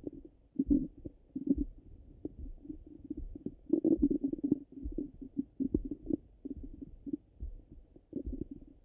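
Bowel sounds of a full stomach heard through a stethoscope: irregular low gurgles and short clicks come and go, with a busier run of gurgling about four seconds in. The stethoscope cuts off the higher tones, so the sound is muffled.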